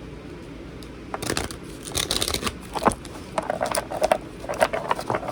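Tarot cards being shuffled and handled: a run of irregular riffling and slapping clicks that starts about a second in.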